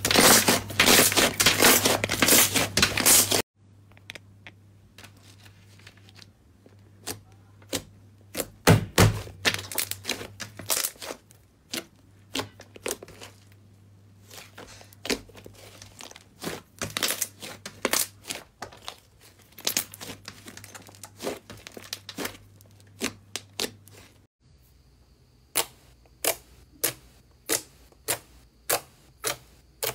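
Slime being squeezed and stretched by hand, crackling and popping as air pockets burst: a dense crackle from a white foam slime at first, then sparser pops. Near the end, a clear slime pressed by fingers gives evenly spaced pops a little over half a second apart.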